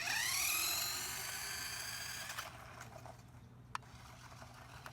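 Small electric motor of a toy RC race car whining at full throttle, its pitch rising quickly as it accelerates, then holding steady for about two seconds before it cuts off.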